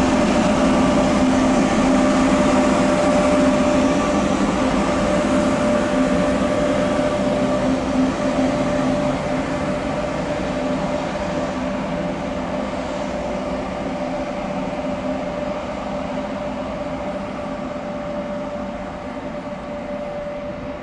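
Electric train running past: rumbling rail noise with a constant tone over it, fading slowly and steadily as the train draws away.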